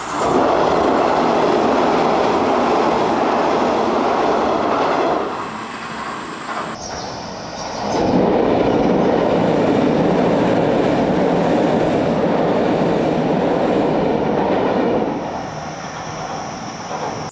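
Sanyo Electric Railway electric train passing over a low steel girder bridge, heard from directly underneath: a loud rumble of wheels on rails over the girder, in two loud spells with a quieter lull from about five to eight seconds in, dying down near the end.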